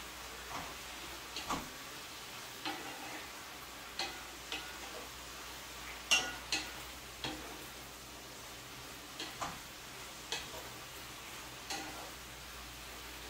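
Rice noodles and vegetables frying in a pan with a faint steady sizzle, while a utensil stirs them and knocks against the pan in irregular sharp taps.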